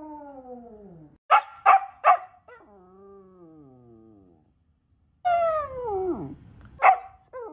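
Samoyed puppy howling: a falling howl fades out, then come three short sharp barks about a second in and a long howl sliding down in pitch. After a brief gap a louder howl drops steeply, a single sharp bark follows, and another howl starts at the very end.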